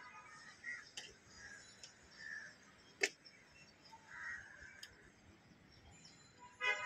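Crows cawing faintly several times, with a single sharp click about three seconds in.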